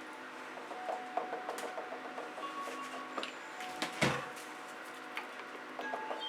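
Light clicks and taps of handling, with one louder knock about four seconds in, over a faint steady hum.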